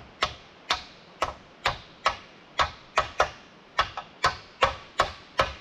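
Hammer tapping on a countershaft bearing to drive it into its bore in an Eaton RTLO16913A transmission case. About a dozen sharp metal-on-metal strikes come at roughly two a second, each with a brief ring.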